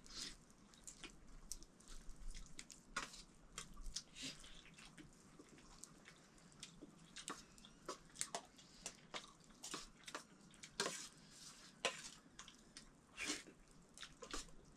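Faint, irregular clicks and taps of people eating from plates.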